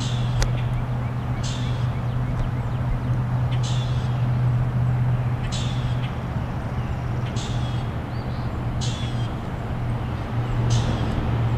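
Outdoor ambience: a steady low machine hum throughout, with a short high bird call repeating about every two seconds.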